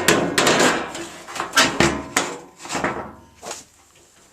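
A metal repair panel being handled and offered up against the van bodywork: a run of sharp clanks, knocks and scrapes that thin out and fade over the last second or so.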